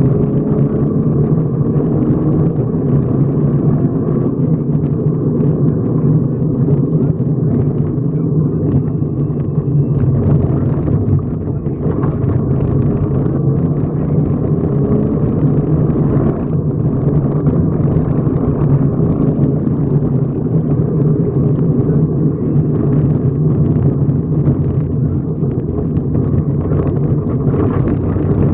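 Subaru rally car's engine running at speed on a gravel stage, heard from inside the cabin, with loose gravel constantly crackling against the underbody.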